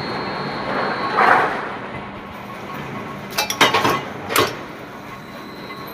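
A quick run of sharp clinks or knocks about three and a half seconds in, then a single one a second later, over a steady background hum.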